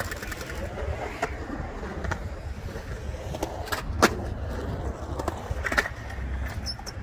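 Skateboard wheels rolling and rumbling on a concrete bowl, with scattered sharp clacks of boards and trucks; the loudest clack comes about four seconds in.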